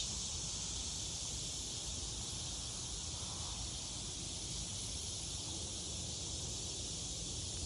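Steady, unbroken high-pitched insect chorus, with a low rumble of wind or handling underneath.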